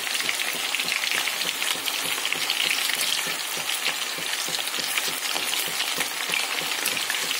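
Breadcrumb-coated chicken pieces deep-frying in hot oil: a steady crackling sizzle of many fine pops.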